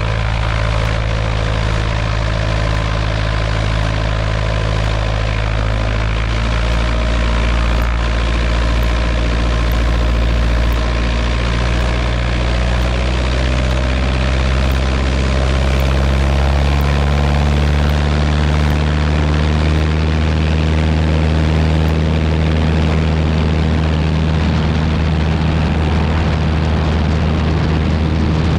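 Cessna 140A's engine and propeller running steadily, then climbing in pitch over several seconds from just before halfway and holding high, as the plane accelerates on its takeoff roll across grass.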